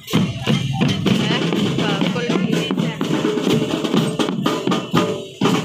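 Children's marching drum band playing: snare and bass drums beating a steady marching rhythm, with bell lyres and pianikas playing the tune.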